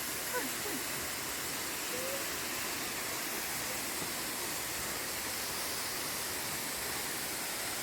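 Waterfall rushing: a steady, even roar of falling water, with faint distant voices.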